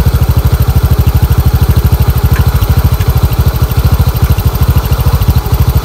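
TVS Jupiter scooter's single-cylinder four-stroke engine idling steadily at the exhaust, a fast even pulsing. The idle speed has just been set right, so the engine now holds idle instead of dying when the throttle is let go.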